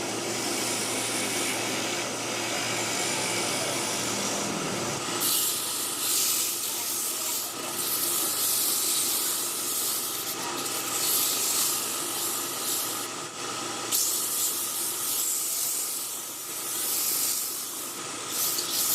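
A steady machine hum, then about five seconds in loud hissing starts and goes on in uneven surges with brief dips.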